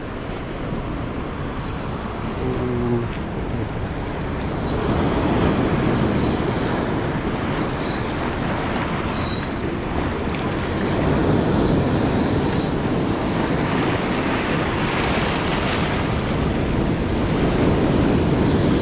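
Sea surf breaking and washing over a boulder shore, a steady rush of water that swells louder every few seconds as each wave comes in.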